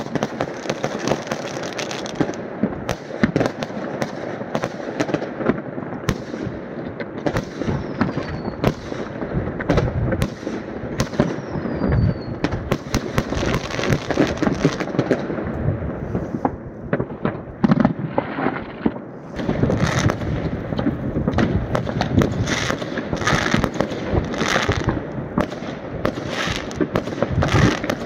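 Many fireworks going off across a neighbourhood at once: a continuous rumble of bangs and crackling, with a few falling whistles in the first half. The crackling thickens into dense bursts about two-thirds of the way through.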